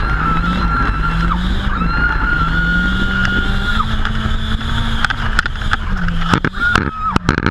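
Nissan 200SX S14's turbocharged four-cylinder engine running hard through a drift, its pitch rising and falling as the throttle is worked, heard from inside the cabin, with a steady high whine that breaks off and comes back. Near the end, a quick run of sharp knocks.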